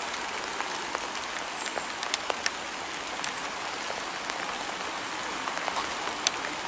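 Steady rain falling, with scattered sharp ticks of individual drops striking close by.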